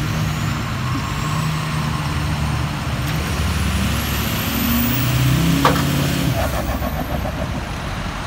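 A tow truck's engine working under load as it pulls a loaded semi dump truck, its pitch rising twice as it pulls harder. There is a short, sharp squeak about two-thirds of the way through, followed by a brief rattle, over the sound of passing traffic.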